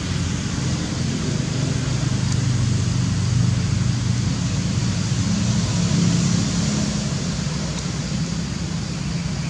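A steady low vehicle-engine hum that shifts a little in pitch, under an even hiss.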